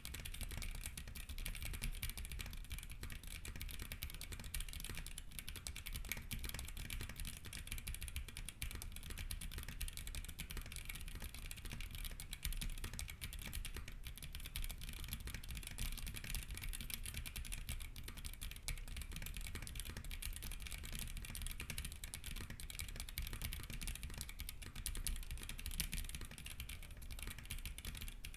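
Mechanical keyboard with Haimu Haku linear switches being typed on continuously, fast clattering keystrokes. Each press carries a sharp spring ping from the lightly lubed springs.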